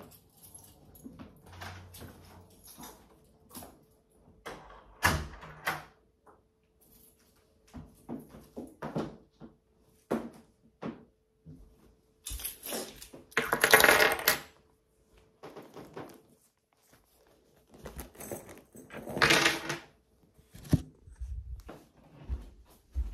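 Household clatter of someone coming in through an apartment door and walking up: scattered clicks, knocks and small clinks, then two loud rustling bursts of handling noise close to the microphone, about halfway through and again near three-quarters of the way. A faint steady hum sits under the first two-thirds.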